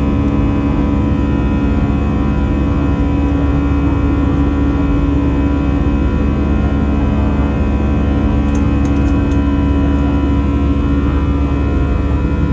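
Steady jet engine drone and airflow inside the cabin of an Airbus A320, heard from a window seat beside the engine during the climb out after takeoff: a heavy low rumble with a strong steady hum. Four faint short ticks about two-thirds through.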